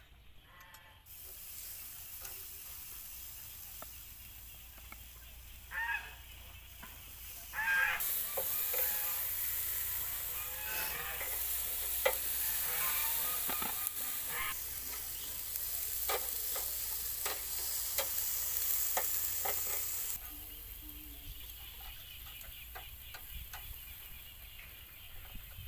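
Marinated, oiled eels sizzling on a charcoal grill, with sharp clicks of metal tongs against the grate. The sizzle is loudest from about 8 to 20 seconds in.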